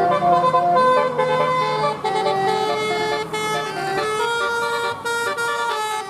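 Telolet 'basuri' multi-tone bus horn playing a tune. Several notes sound at once and step from one pitch to the next every fraction of a second.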